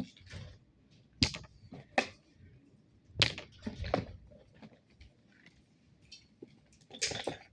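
Handling of a makeup kit and its plastic packaging: a few short sharp clicks and rustles, with quiet gaps between them.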